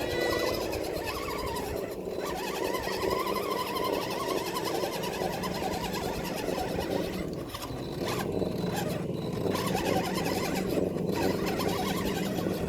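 Axial SCX10 RC crawler's electric motor and geared drivetrain whining steadily as it strains to climb a hill too steep for it, the pitch dipping briefly and recovering about seven seconds in.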